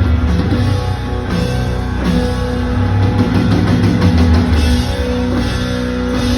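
Rock band playing loud, steady rock music in a live concert performance.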